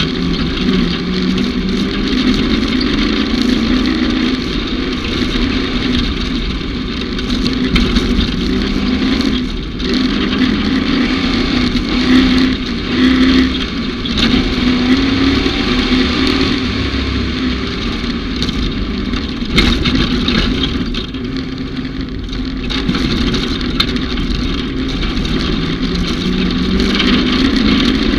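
Side-by-side utility vehicle's engine running under way, its pitch rising and falling with the throttle, over a steady noise of drivetrain and terrain, with a few brief knocks.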